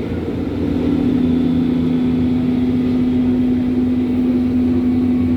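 Berlin U-Bahn class H (H01) train running through the tunnel, heard from inside the car: a steady rumble of wheels and running gear, with a steady motor hum that sets in about half a second in.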